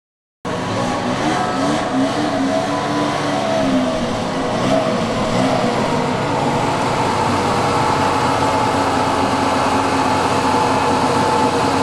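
Classic car engine running, its pitch rising and falling as it revs in the first few seconds, then holding steady. The sound starts abruptly.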